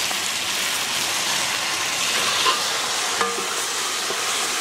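Chilli fish sizzling in hot oil in a pan as it is stir-fried, with soy sauce just added to the fried fish pieces, onion and capsicum. There is a short clink about three seconds in.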